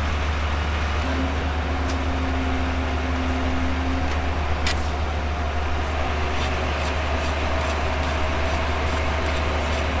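Concrete mixer truck's diesel engine running with a steady low rumble. A single sharp click comes about halfway through, with a few light taps later.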